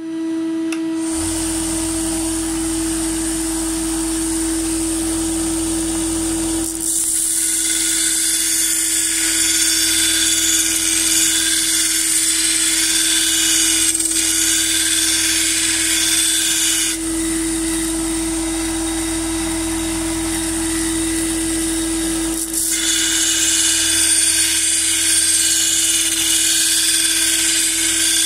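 Sealey 25 mm belt sander starting up and running with a steady hum, its worn belt grinding the steel edge of a lawn mower blade. There are two long grinding passes, from about a quarter of the way in to just past halfway and again from about three quarters in, each adding a loud, bright hiss over the motor.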